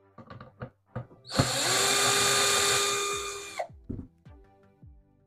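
Power drill running steadily for about two seconds and then stopping, backing out a mounting screw of a vintage speaker's woofer. A few sharp clicks of handling come just before it.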